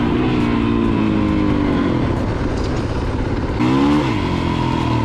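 A dirt bike's engine running as it is ridden. The pitch eases down over the first two seconds, the revs climb sharply and drop back about four seconds in, and then it holds steady.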